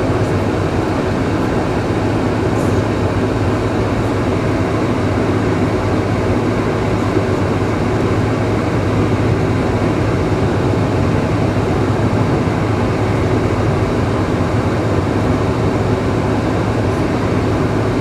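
Steady cabin noise of a Boeing 747-436 on the ground before its takeoff roll, heard from inside the passenger cabin: its four Rolls-Royce RB211 engines running at low thrust, an even rumble with a low hum.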